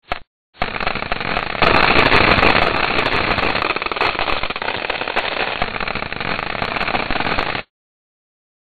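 Computer-generated clicks sonifying dust-particle impacts counted by the Stardust spacecraft's Dust Flux Monitor Instrument as it flies past comet Tempel 1, one click per rise in the impact counter. A brief burst, then about half a second in a dense crackling stream of rapid clicks that stops abruptly about a second before the end.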